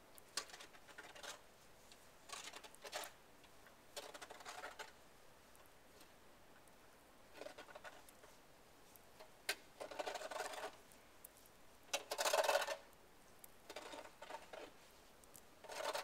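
Roof rake scraping heavy snow off the edge of a shingled roof in a dozen or so short, irregular strokes. It sounds faint and scratchy, with the loudest stroke near three-quarters of the way through.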